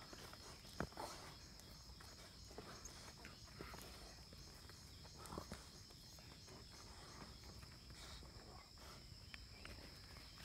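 Faint outdoor quiet: a steady high-pitched insect drone, with a few soft scattered thuds and rustles of dogs' paws on grass.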